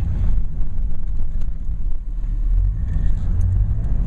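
Truck engine running at low throttle, a steady low rumble heard from inside the cab, as the truck creeps along a snowy road.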